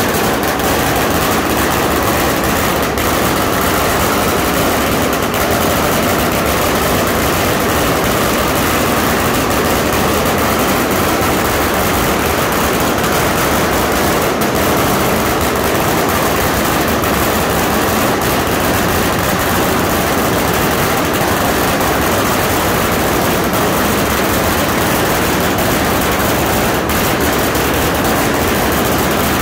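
A long string of Chinese firecrackers going off, its rapid bangs running together into one unbroken crackle at an even, loud level.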